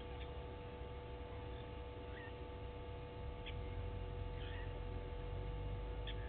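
Short, high bird chirps, scattered about one every second or so, over a steady low rumble and a constant electrical hum; the rumble grows a little louder after about three seconds.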